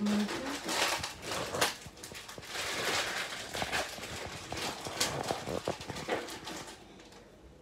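Crinkly rustling with scattered light clicks and knocks as kitchen items and packaging are handled, dying away near the end.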